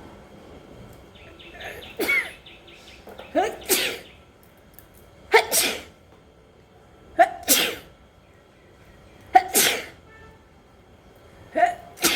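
A woman sneezing repeatedly, about six sneezes roughly every two seconds. Each is a quick voiced 'ah' followed by an explosive 'choo'. The fit is brought on by sniffing chhinkni (sneezing) powder.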